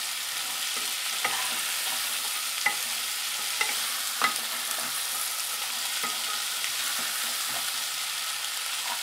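Diced butternut squash and carrots sizzling as they sauté in a pressure-cooker pot, stirred with a wooden spatula that scrapes the pot and knocks against it sharply a few times.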